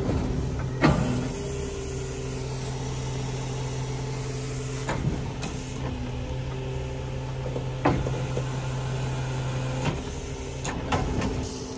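A motor running at a steady speed, with a few sharp metallic knocks scattered through; the steady hum cuts off about ten seconds in.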